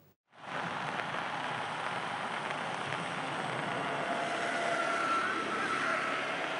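Steady outdoor background noise coming in over a field reporter's live microphone feed, switching on abruptly about a third of a second in after a moment of dead air, with faint passing tones in the middle.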